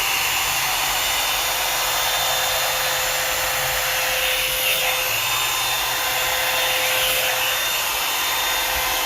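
Asani 4-in-1 blow dryer brush running on its cool setting: a steady rush of blowing air with a steady tone underneath.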